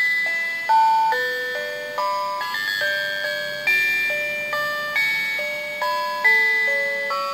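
Electronic music box of a wooden pony merry-go-round toy playing a waltz melody as the carousel is spun by hand: clear single notes that each fade after sounding, with a stronger note starting each bar.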